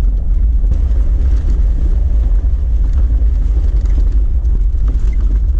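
Jeep Wrangler driving along a gravel forest road: a steady, deep engine and drivetrain rumble with tyre noise from the gravel, heard from inside the cab.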